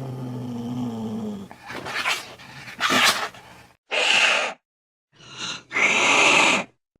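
Angry cat growling low, then hissing and spitting in a run of sharp bursts, the loudest near the end.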